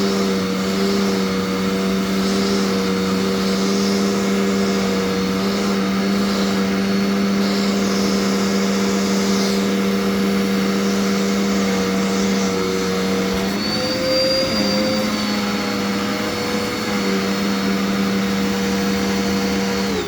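Dirt Devil Endura Reach vacuum cleaner running steadily with suction through its hose, its motor hum rising in pitch for a moment about two-thirds of the way through, then switching off and winding down at the very end.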